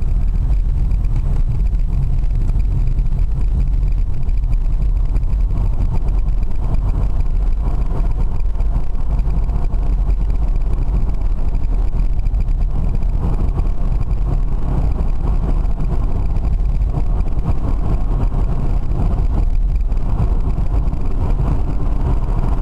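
Steady low rumble of a car cruising at motorway speed, heard inside the cabin of an electric-converted BMW: mostly tyre and wind noise, with no engine note.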